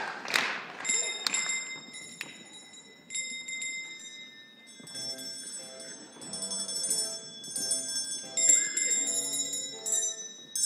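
Bell-like notes ringing out and fading, a few strokes in the first two seconds, then a light tune of bell notes over softer music from about five seconds in.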